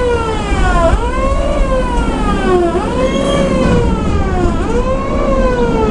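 A fire siren wailing over and over, each cycle a quick rise and a slower fall, about one every two seconds, from the animated burning-building display. Under it runs the steady low rumble of the moving train.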